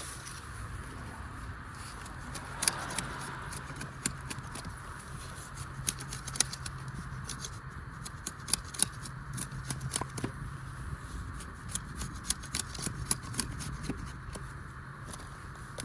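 Irregular sharp clicks and snips of a hand tool trimming a small, freshly cut spruce pole, with no even rhythm, over a steady low hum.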